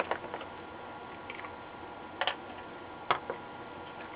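Scattered light clicks and taps of a soldering iron and desoldering wick against a circuit board as old capacitors are desoldered: a few taps at the start, a double tap about two seconds in, and another a second later.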